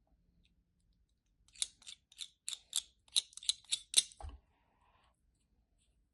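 Dry soap being cut or crushed: about ten quick, crisp crunches over some three seconds, the loudest near the end, followed by a brief low thud.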